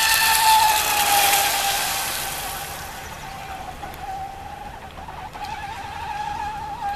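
High-pitched whine of an RC racing boat's TP Power 3640 brushless electric motor at full speed on a 4S LiPo, with a hiss of water spray. The whine is loudest in the first second or so and drops a little in pitch as the boat passes, then fades as it runs away.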